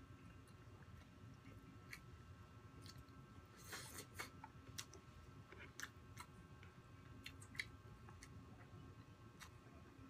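Quiet close-up chewing and mouth sounds of a person eating, with scattered soft clicks and a brief louder crackle about four seconds in.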